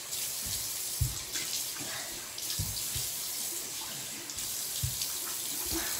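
Bathroom sink tap running steadily while faces are washed, with several dull low bumps of hands and objects against the counter.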